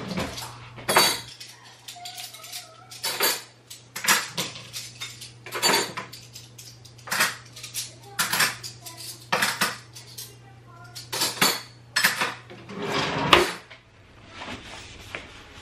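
Clean cutlery and dishes clinking and clattering as they are put away into a kitchen drawer, an irregular run of sharp clinks, with a steady low hum underneath that stops near the end.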